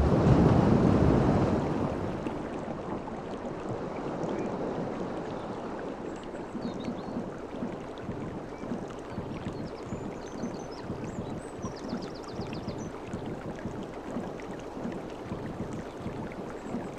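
Sea waves washing: one surge is loudest at the start and ebbs over the first couple of seconds, then a steady wash goes on, with a few faint high chirps in the middle.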